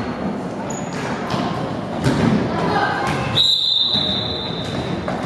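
Basketball dribbles and thumps on a hardwood gym floor under voices in the hall. About three and a half seconds in comes one steady, shrill referee's whistle blast, lasting about a second and a half.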